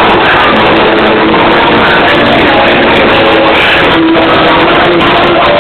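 Loud amplified live band music heard from within a concert crowd, with held notes over a dense wash of sound; the recording is overloaded, its level pinned at the top throughout.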